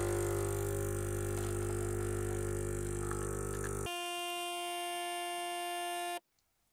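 Xiaomi Scishare capsule espresso machine's pump buzzing steadily as it brews a shot. The deep part of the buzz drops away a little under four seconds in, leaving a higher steady hum, and the sound cuts off suddenly near the end.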